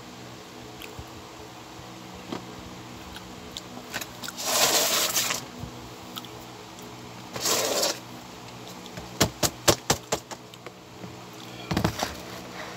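Eating with a metal spoon and fork: a quick run of about eight clinks of cutlery against the plate, preceded by two short noisy scrapes and followed by a brief knock as the bowl is handled. A steady low hum underlies it all.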